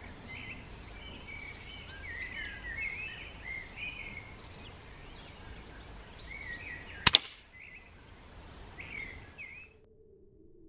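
One sharp air rifle shot about seven seconds in, over small birds chirping and twittering, which cut off abruptly near the end.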